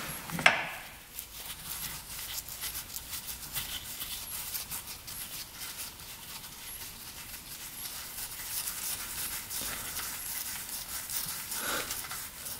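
Small irregular clicks and faint handling sounds of a gloved hand spinning out the loosened transmission oil drain plug of a 1980 Suzuki RM125 two-stroke, with one sharper click about half a second in.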